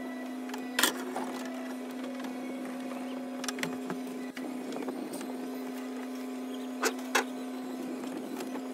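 A steady, even hum with a few sharp knocks and clunks of handling: one about a second in, a couple of fainter ones midway, and two close together near the end.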